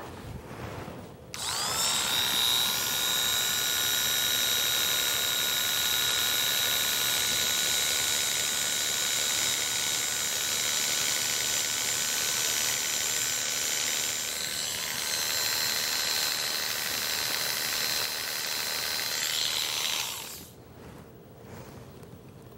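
Electric animal hair clippers switched on about a second in, running with a steady high whine while shaving fur from a dog's lower hind leg; the pitch shifts slightly about two-thirds through, and they are switched off near the end.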